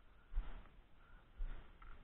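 Footsteps on dry leaves and earth on a steep slope: two dull thumps about a second apart, each with a light rustle.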